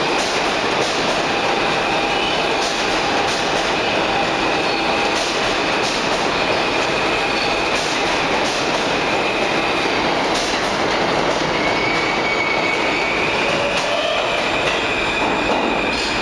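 Alstom-built R160A subway train pulling out of a station and running past at close range: a steady, loud rolling of steel wheels on rail, with high squealing tones from the wheels that come and go and scattered sharp clicks.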